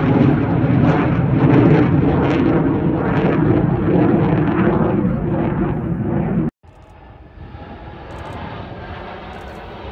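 Jet noise from Blue Angels F/A-18 Super Hornets: a loud, rumbling jet sound overhead that breaks off abruptly about six and a half seconds in. A quieter, steadier jet sound follows and builds slightly.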